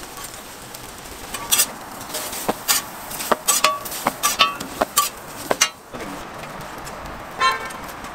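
Metal spatula clanking and scraping on a flat-top steel griddle: a quick run of sharp clanks, some with a short metallic ring, over a steady hiss.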